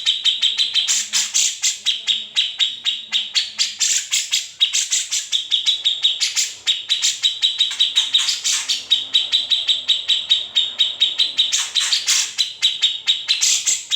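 Grey-cheeked bulbul (cucak jenggot) singing a loud, fast chattering trill of sharp repeated notes, about eight to ten a second, broken by brief pauses.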